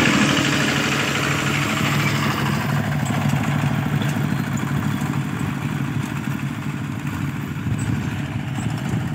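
Single-cylinder diesel engine of a two-wheel walking tractor running steadily under load while ploughing, gradually growing fainter as it moves away.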